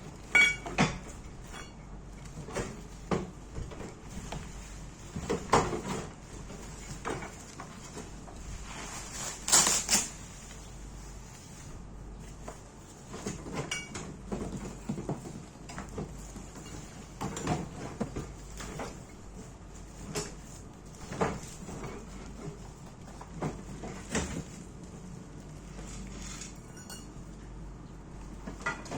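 Scattered knocks and clicks as a mini grinder and its parts and packaging are handled and set down, with a louder rustling burst about ten seconds in.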